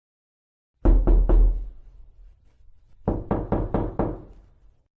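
Knocking on a wooden door: three quick knocks about a second in, then a run of five knocks about two seconds later, each with a deep thud.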